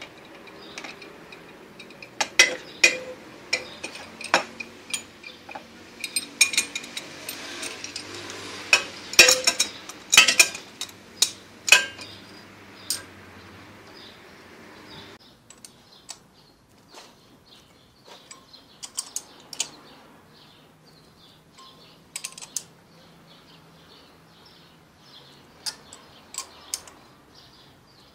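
Ratchet wrench clicking as it turns two nuts locked together on a cylinder-head stud, working the stud out. The clicks come in quick irregular runs. They are loud and dense in the first half, then fainter and sparser after about halfway.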